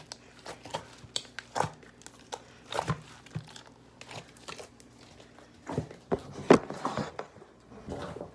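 Hands kneading and pulling a large batch of glue-and-borax slime in a bucket, giving irregular sticky squelches, pops and crackles, loudest about six and a half seconds in.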